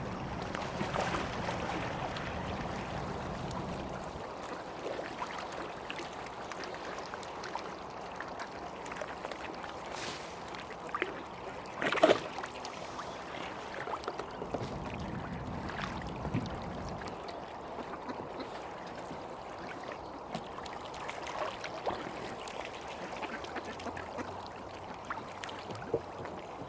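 Mallard ducks quacking now and then over a steady background hiss. The loudest moment is a short, sharp sound about halfway through.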